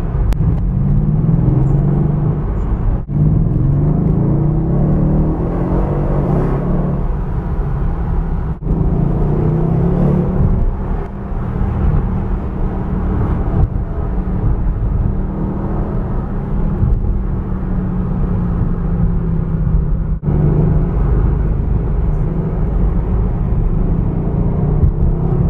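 Tuned 600 hp Mercedes CLS 63 AMG V8 heard from inside the cabin while driving at town speeds. The deep engine and exhaust note rises and falls with the throttle, with a few brief breaks.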